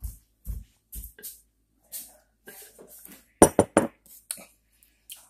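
Gulping swallows while drinking from a bottle, about two a second over the first second or so. A quick cluster of sharp knocks and clatter follows about three and a half seconds in and is the loudest sound.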